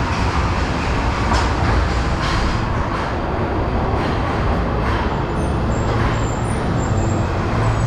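A Tokyo Metro Marunouchi Line 2000-series subway train pulls into an underground platform with a steady, loud rumble of wheels and motors, and faint high squeals in the second half.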